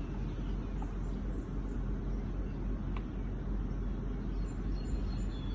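A steady low rumble of background noise, with one faint click about three seconds in.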